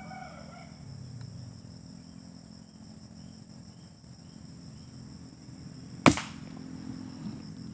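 A single shot from a PCP air rifle, one sharp crack about six seconds in, over a steady high-pitched background hum.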